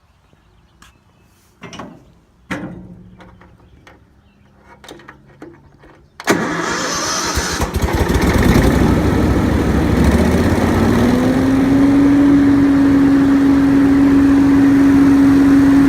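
Hurricane Z3 blower starting up: a few knocks, then the engine catches suddenly about six seconds in and runs up to speed. By about eleven seconds it settles into a loud, steady rush of air with a steady hum.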